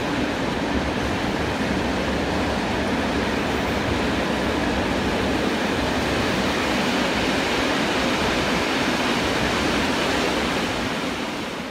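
Freight train of grain hopper wagons rolling past, a steady rushing noise of wheels on rails, fading out near the end.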